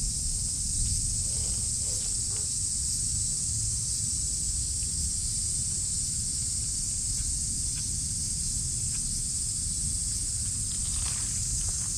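A steady chorus of cicadas, a continuous high buzz with no breaks, over a low rumble.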